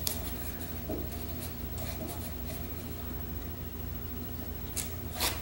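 Fingers rubbing double-sided turner's tape down onto a wooden faceplate. Near the end come two short scrapes as a small blade works at the tape. A steady low hum runs underneath.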